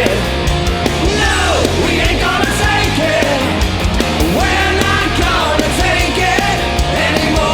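Hard rock band playing 80s hair metal: distorted electric guitars, bass and drums, with a lead line that bends and slides in pitch over the top.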